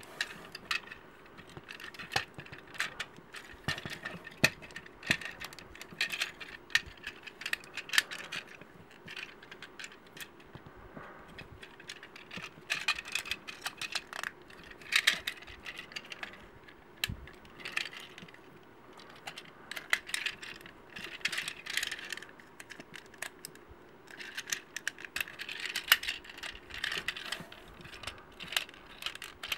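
Plastic Robots in Disguise (2015) Optimus Prime action figure being transformed by hand from robot to truck mode: irregular clicks, snaps and light rattles as its plastic limbs and panels are folded and pushed into place.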